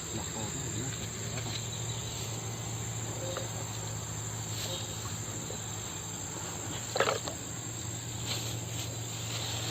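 Evening insect chorus: a steady, high-pitched drone with no break. A low hum sits underneath, and a short knock comes about seven seconds in.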